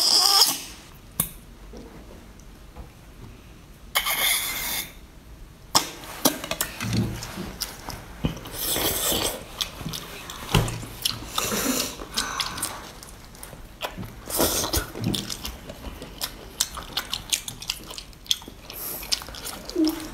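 Close-miked eating of a whole cooked octopus: slurping its ink through a drinking straw stuck into the head, in several short hissy sucks, then small wet clicks of biting and chewing the tentacles.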